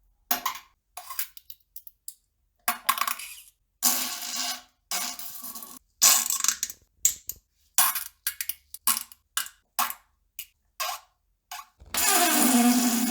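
A string of farts of varying length, each cut off by a short silent gap. The longest begins about twelve seconds in and runs on past the end.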